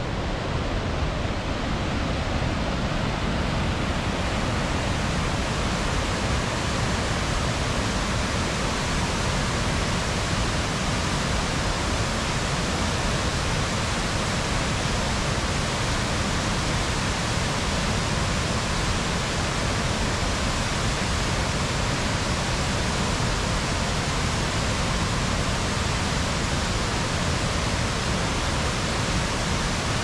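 Waterfall (Cascada de la Cueva) in full flow, white water falling over a rock ledge into a pool, heard close as a steady, dense rush of water that never changes.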